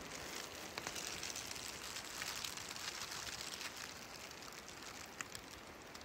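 Faint, even patter of light rain, a dense scatter of small drop ticks that eases a little in the last two seconds.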